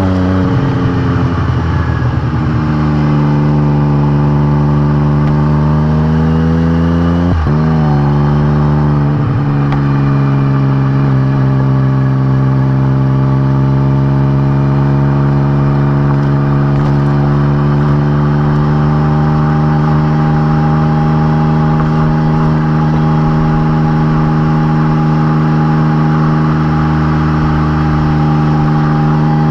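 Exhaust of a Can-Am Spyder RT three-wheeler through RLS Crusher series aftermarket mufflers, the Rotax 1330 inline-three pulling on the road. The pitch drops and climbs again at a gear change about seven seconds in, then holds nearly steady at cruising speed.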